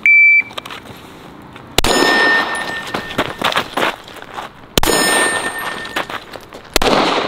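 An electronic shot timer gives one short, high steady beep as the start signal. Then a handgun is fired in several strings, and steel targets ring after the hits; the loudest strings come about two, five and seven seconds in.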